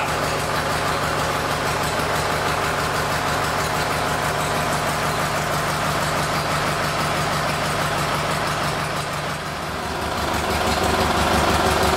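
Craftsman GT garden tractor engine running steadily at idle while the freshly refilled Hydro-Gear hydrostatic transmission is purged of air. It dips briefly and then runs a little louder about ten seconds in.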